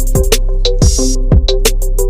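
Loud background music with an electronic drum beat: deep kick drums, snare and hi-hat strokes over sustained synth notes.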